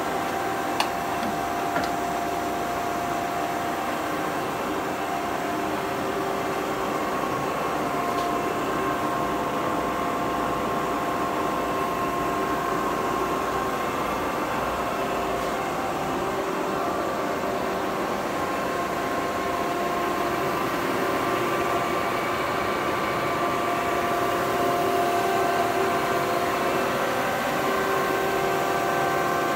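1970 Webster & Bennett 48-inch vertical turret lathe running, its table turning, with a steady mechanical hum and several gear whines that shift in pitch now and then. Two sharp clicks about a second in and two seconds in.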